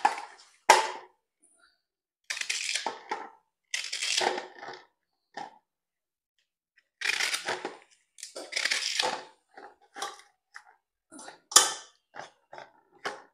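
Pieces of fresh banana stalk and leaf being dropped and packed into a metal cooking pot: a series of short rustling, crunching bursts with sharp knocks against the pot, the sharpest near the end.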